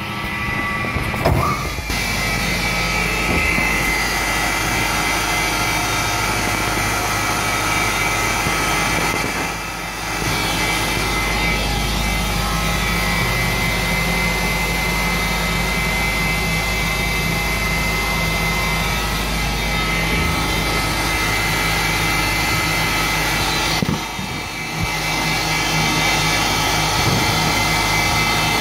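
Kilia 130 mm angle meat grinder running with a steady machine drone and a thin high whine, dipping briefly about ten seconds in and again near twenty-four seconds.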